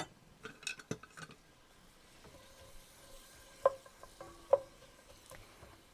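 Chopped onion frying in a sauté pan with a faint sizzle, stirred with a utensil that clicks against the pan. About two-thirds of the way in it knocks sharply on the pan twice, with a brief ring after each knock.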